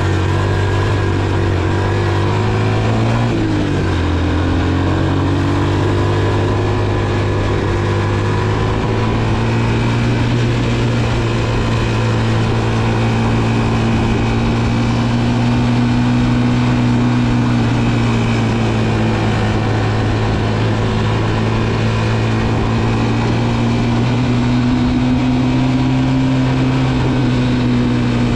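Honda TR200 Fat Cat's single-cylinder four-stroke engine running at a steady cruise while riding, with wind rush on the microphone. About three and a half seconds in, the engine note dips and climbs back, then holds with only slight rises and falls.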